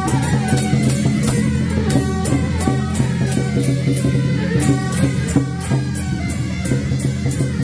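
Loud amplified music with a fast, steady beat, a held bass line and guitar-like tones.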